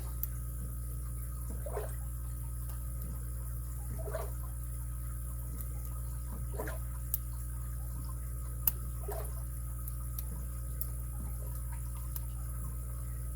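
Faint clicks and scrapes of a lock pick and tension wrench working the pin stack of a padlock, held at a small false set, over a steady low hum. A soft rustle recurs about every two and a half seconds.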